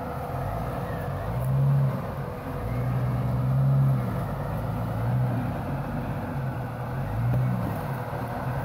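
Jeep Cherokee XJ's engine running under light throttle as it crawls over rocks, the pitch rising and falling several times with each push on the throttle, loudest about two and about four seconds in.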